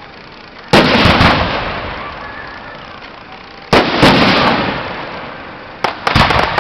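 Fireworks bursting: a loud bang about a second in, another near four seconds with crackles after it, and a quick cluster of several bangs near the end. Each bang fades out in a long rumbling tail.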